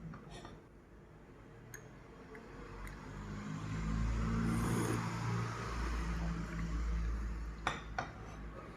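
Rain hissing steadily while a low rumble swells up from about three seconds in and holds, then two sharp clinks of china crockery near the end.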